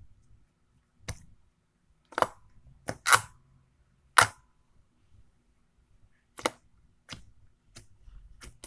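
Slime being squeezed and stretched by hand, giving about nine short, sharp pops as trapped air bubbles burst, spaced irregularly with quiet between them.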